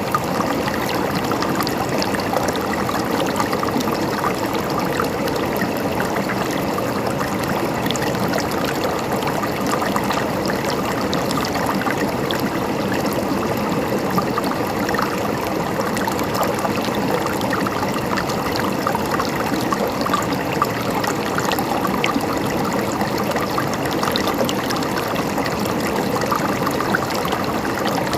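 Stream water running and gurgling steadily over stones, a dense, even babble with small splashes.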